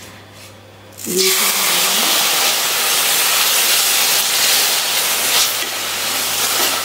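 Cold milk poured into a hot pan of ghee-roasted coconut powder, sizzling in a loud, steady hiss that starts suddenly about a second in.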